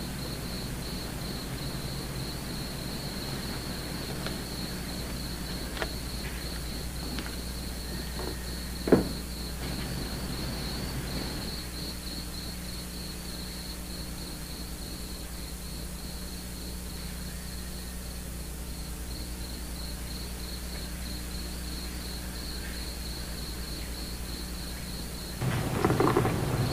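Crickets chirping in a steady, fast-pulsing high trill over a low hum. A brief sound comes about nine seconds in, and a louder noise starts near the end.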